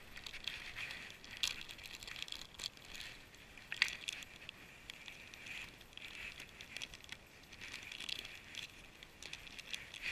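Crinkling of a small plastic bait packet being handled in the hands: faint, scattered crackles and clicks.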